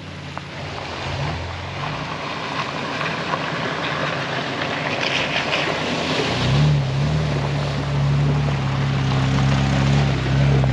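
A four-wheel-drive wagon driving a wet dirt forest track, with tyre and water hiss and a splash as it crosses a muddy puddle about five seconds in. From about six and a half seconds its engine drones loud and close as it drives past.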